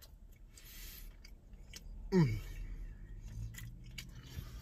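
A man chewing a mouthful of chicken cheesesteak, with faint wet mouth clicks. About two seconds in comes a short hum that falls in pitch.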